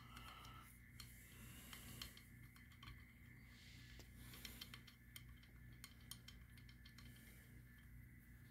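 Near silence, with faint scattered ticks and light handling noise from fingers working the nut on a small wooden marking tool as it is snugged up.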